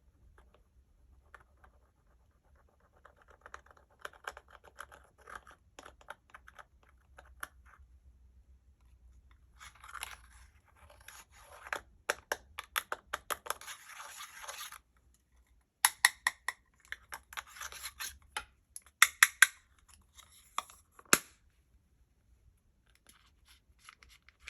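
Slime being worked by hand, with makeup and other bits being mixed in: bursts of rapid sticky crackles, clicks and squishes separated by quiet pauses. The sharpest snaps come about two-thirds of the way through.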